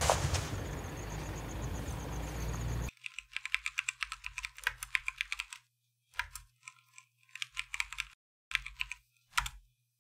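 Typing on a laptop keyboard: short bursts of rapid key clicks with pauses between them, starting about three seconds in. Before that, a dense, steady noise with a sharp hit at its start cuts off suddenly.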